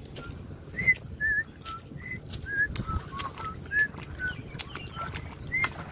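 Birds calling: a run of short whistled chirps at shifting pitches, about two a second, some arching up and down, with a few sharp clicks among them.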